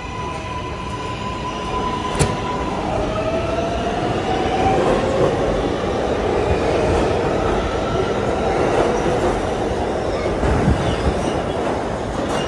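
A New York City subway L train pulling out of the station. A steady high tone stops about three seconds in, just after a sharp click. Then the traction motors' whine rises in pitch as the train picks up speed, over the rumble and clatter of its wheels on the rails.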